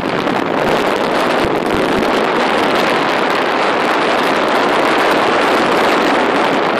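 Steady rushing, scraping hiss of skis sliding over packed snow, mixed with wind buffeting the microphone, with a couple of low bumps in the first two seconds.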